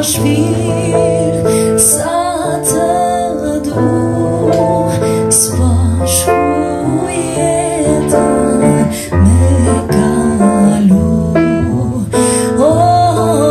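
An Albanian song sung by a woman with a wavering vibrato, over steady instrumental accompaniment, the voice coming in phrases between instrumental passages.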